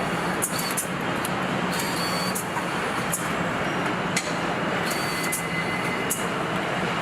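Car assembly plant floor noise: a steady machinery hum and hiss, with irregular short clicks and brief high-pitched hisses about once a second.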